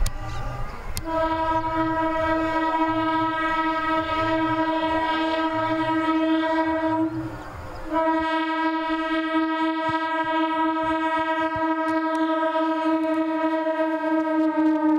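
Electric multiple unit train's horn sounding two long single-tone blasts, the second held about seven seconds and falling slightly in pitch near the end as the train passes, over the running noise of the wheels on the rails.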